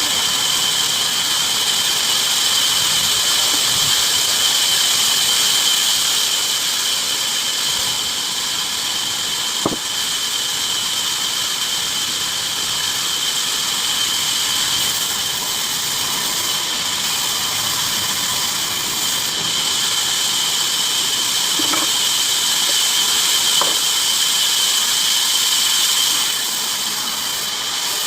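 Bandsaw blade running steadily through wood, a high-pitched squealing whine over a hiss. It has a single click about ten seconds in and eases slightly near the end.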